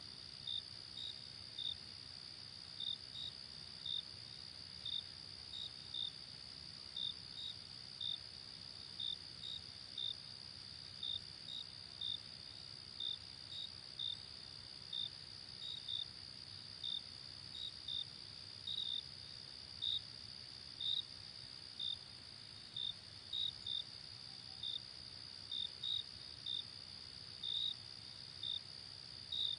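Crickets chirping: a steady high trill underneath, with short single chirps roughly two a second at an uneven pace.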